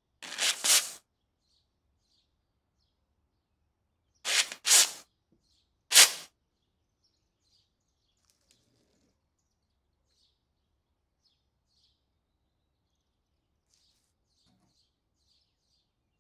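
WD-40 aerosol sprayed through its red straw nozzle onto rusted metal, in several short hissing bursts in the first six seconds. Faint small ticks and squeaks follow.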